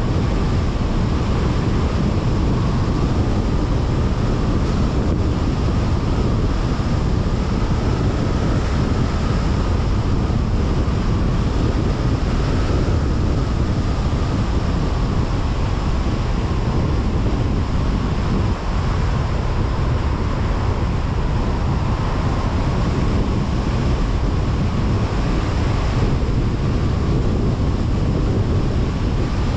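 Steady road noise of a car driving at speed on a highway, a low rumble of tyres and wind with a faint whine that wavers slightly in pitch.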